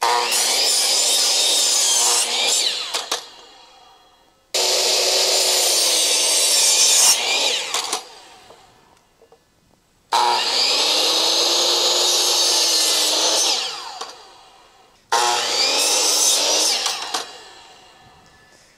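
Electric miter saw making four cuts through wooden boards. Each time the motor starts up abruptly, the pitch dips as the blade bites into the wood, and the blade spins down after the trigger is released.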